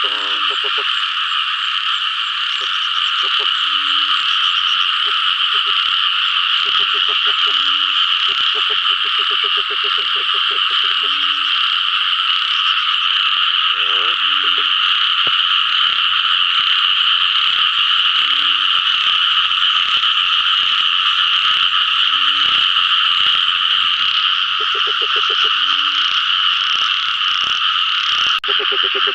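Frogs calling in chorus: a dense, steady, high-pitched chorus with a nearer frog's lower pulsed croak breaking in every second or few.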